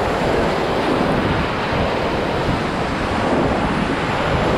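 Whitewater of a river rapid rushing steadily around a raft, loud and close to the microphone.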